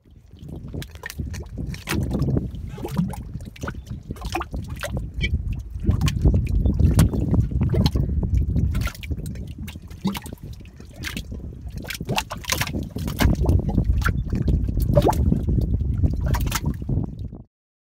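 Mud pot bubbling: thick mud gurgling and blurping with many wet pops, swelling and easing in waves a few seconds long.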